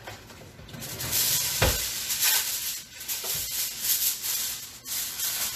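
Aluminium foil being pulled off its roll and crinkled, a dry rattling rustle that starts about a second in, with one knock about a second and a half in.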